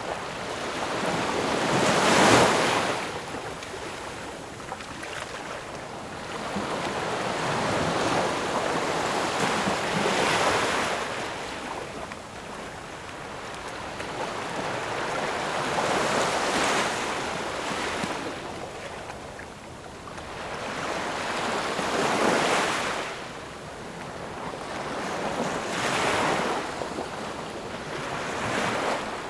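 Ocean waves washing in, rising and falling in uneven surges every four to eight seconds or so, the loudest about two seconds in.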